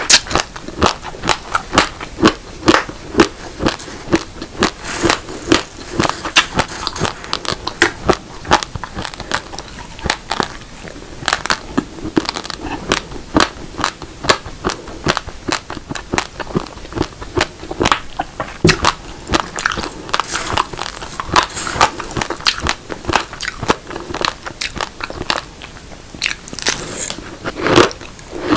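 Raw, uncooked black and red rice grains being bitten and chewed close to the microphone: a steady run of sharp, crisp cracks, several a second, as the hard grains break between the teeth.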